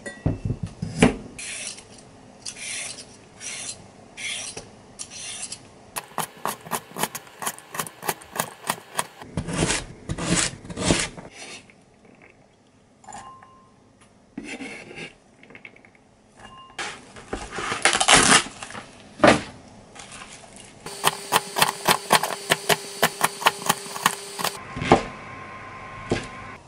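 Kitchen food-preparation sounds: quick runs of sharp strokes on a board, with rubbing, scraping and clinking of utensils and dishes, in several short clips.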